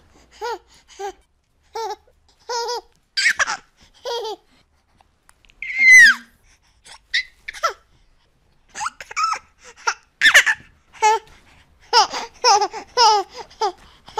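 Baby laughter: short bursts of high-pitched giggles with pauses between, a loud squeal that falls in pitch about six seconds in, and a quick run of laughs near the end.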